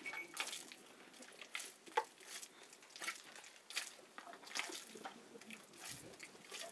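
Hands mixing flour and water into dough in a plastic basin: faint, irregular soft wet squelches and rustles, with one sharp click about two seconds in.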